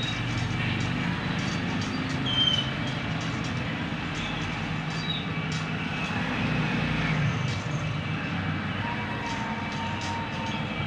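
Steady low background rumble with hiss over it, with a few faint short chirps and a brief louder bump about two and a half seconds in.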